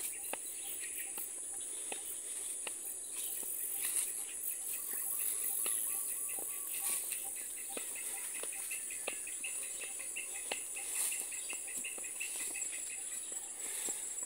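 Steady high-pitched drone of an insect chorus, with the soft, regular footsteps of someone walking on a grassy path. From about the middle on, a long run of quick, evenly spaced chirps sounds over the drone.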